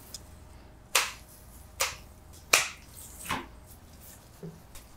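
Four sharp clicks, about one every 0.8 seconds, as stems of greenery are worked into a flower arrangement by hand.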